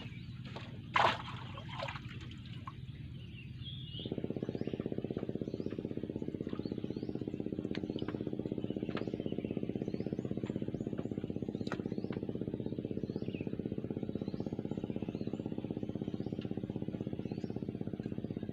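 A few knocks, then about four seconds in a steady motor hum starts abruptly and runs on evenly, with faint, regularly repeated high chirps above it.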